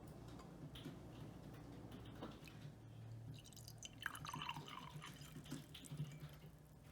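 Faint dripping and trickling water with a few small clicks, busier and a little louder for about a second around four seconds in.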